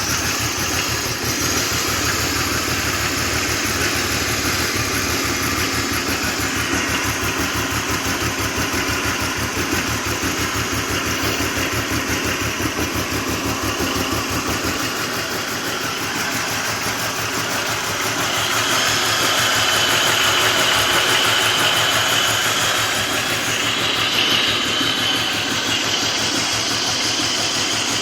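2000 BMW 528i's inline-six engine running cold, with a fast, even knocking through its sound, the cold-engine knock the owner is asking about. About halfway through, the deepest part of the sound drops away, and a few seconds later it grows a little louder for a while.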